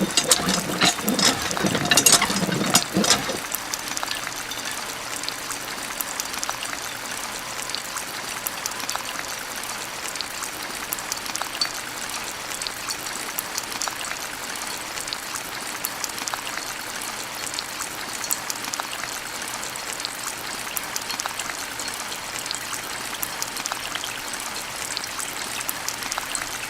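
Water running and trickling steadily, with a flurry of sharp clicks and splashes in the first three seconds.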